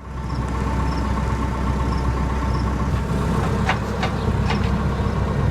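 Tractor engine idling steadily, with a deep, even rumble. A few light knocks come a little past the middle.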